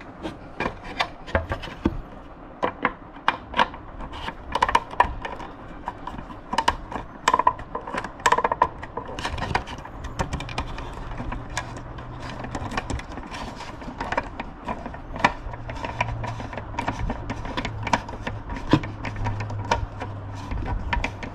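Screwdriver working two screws out of a plastic LC135 motorcycle tail-light housing, with many irregular clicks and taps from the screwdriver and the handled plastic.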